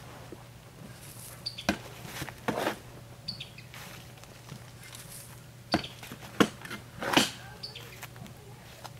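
Compost being shovelled and spread over a raised garden bed: several separate scraping, crunching strokes a second or so apart, the loudest about two-thirds of the way through. Small birds chirp now and then.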